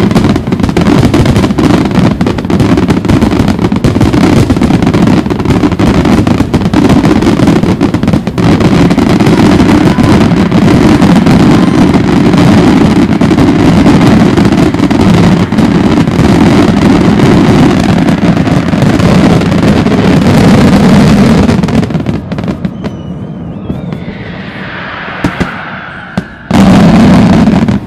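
Dense, continuous barrage of fireworks bursts and crackle, loud enough to saturate the phone's microphone. About 22 seconds in it drops off, then one more loud volley comes near the end.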